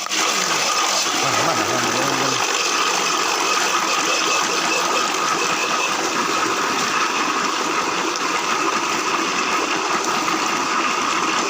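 Electric nut-milk grinding machine running at steady speed: a constant high motor whine over a dense, even machine noise.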